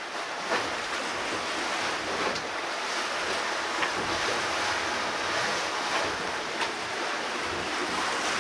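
Steady rush of wind and sea around a sailing catamaran under way, with wind buffeting the microphone and a few faint taps.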